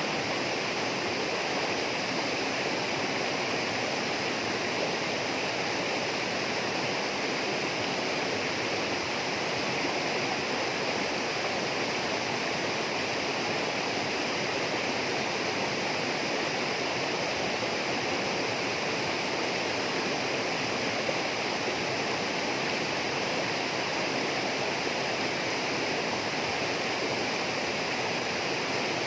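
Tropical rainforest ambience: a steady, unchanging rush of flowing water, like a stream or small waterfall, with a steady high band of sound over it.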